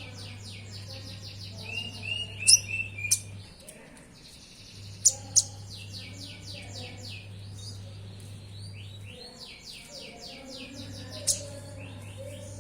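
Konin sunbird singing: three long runs of fast, repeated high notes, broken by a few sharp, loud chips. A steady low hum runs underneath.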